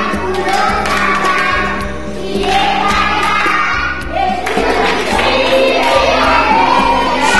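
A group of young children singing a song together, over a musical accompaniment with a repeating bass line.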